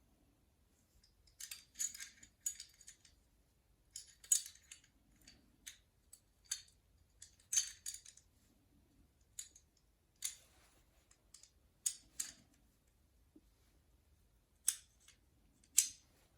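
Steel parts of a Citadel M1911 pistol clicking and scraping against each other as the field-stripped gun is put back together. Irregular short metallic clicks, a dozen or so, with a few brief sliding scrapes between them.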